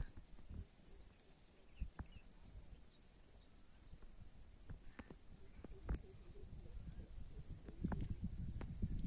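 Insects chirping in a high-pitched, evenly pulsing trill. Scattered faint clicks and knocks sound over it, and a low rumble builds near the end.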